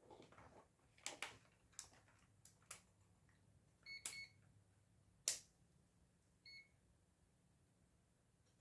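Faint clicks and knocks of small parts being handled, with short electronic beeps from a digital multimeter: two close together about four seconds in, a sharp click just after, and a single beep a little over a second later.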